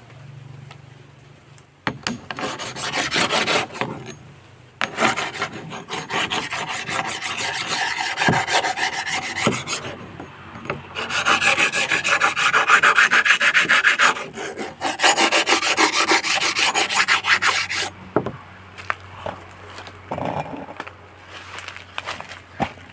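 Machete blade being sharpened by hand: rapid back-and-forth scraping strokes of steel against the sharpening tool, in four bouts with short pauses between, then quieter, scattered scrapes near the end.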